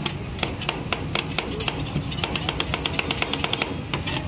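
Two metal spatulas chopping and scraping fruit into ice cream base on a steel rolled ice cream cold plate: a fast, irregular run of sharp metal taps on steel.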